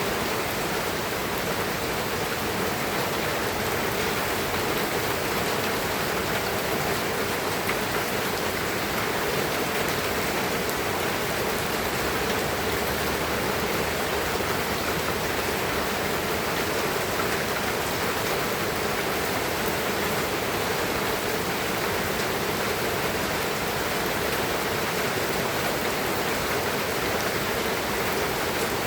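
Steady rain falling, an even hiss without pause or change.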